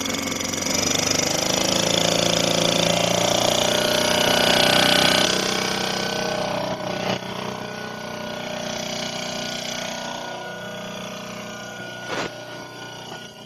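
Small portable petrol generator running steadily just after being pull-started, quieter from about five seconds in. A couple of sharp knocks cut through it, one near the end.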